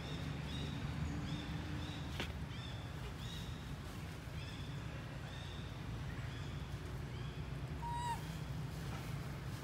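Baby long-tailed macaque crying: a run of short, high-pitched calls about twice a second, fading after about six seconds, then one lower, falling call near the end.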